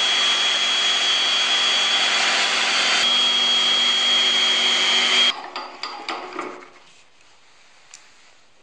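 Electric random-orbit sander with a vacuum hose attached, running against a maple sphere as it spins on a wood lathe: a loud, steady sanding hiss with a steady high whine over it. It cuts off suddenly about five seconds in, followed by fainter scraping noises.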